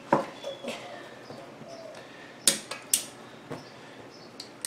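Metal hand tools clinking and tapping against the valve stem and alloy rim of a wheel: an irregular run of sharp clinks, some with a short ring. The loudest come about two and a half and three seconds in.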